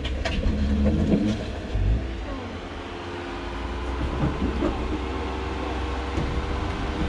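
Jeep Gladiator crawling over rocks at low speed, its engine running steadily under light throttle, with a few sharp knocks of tyres and underbody on rock in the first second or so.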